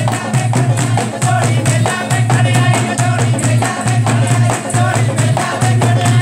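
Dholak drum playing a fast, steady folk dance beat, with hand clapping.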